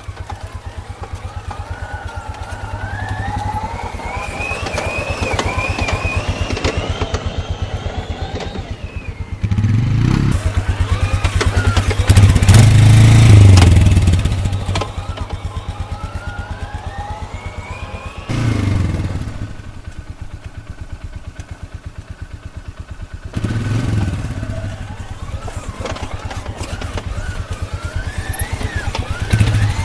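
A 2013 Polaris Sportsman 500 HO ATV being ridden, its single-cylinder engine running with a fast, even pulse and a pitch that rises several times as it picks up speed. Louder low bursts lasting a second or two come several times.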